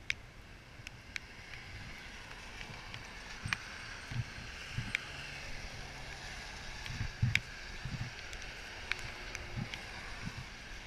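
Steady hiss of tyres on a rain-wet road from passing traffic, building after a few seconds, with scattered light clicks and the low thuds of footsteps on wet pavement.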